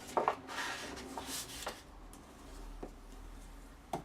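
Cardstock being scored along its fold lines: a couple of light clicks, then a dry scraping rub of the scoring tool along the card for about a second and a half, followed by a single soft tap.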